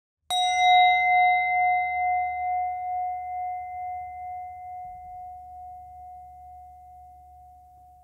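A bell-like chime struck once, ringing out with a pulsing wobble as it slowly fades over about eight seconds.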